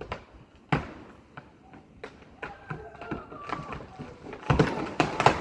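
Wood cracking and snapping in irregular sharp cracks, with a louder cluster near the end, as the tree gives way.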